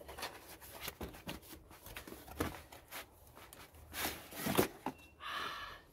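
Cardboard box being handled and opened, and a folded vinyl pool float rustling and crinkling as it is pulled out. There are scattered short scrapes, with louder rustling about four seconds in.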